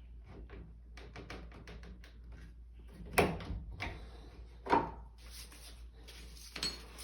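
Light tapping and clicking of tools working on a wooden door, then two sharper knocks about a second and a half apart.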